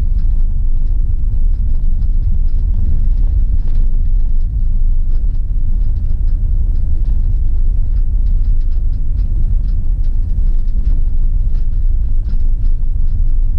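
Steady low rumble of a vehicle driving slowly along a paved road, heard from inside the cab, with faint scattered clicks over it.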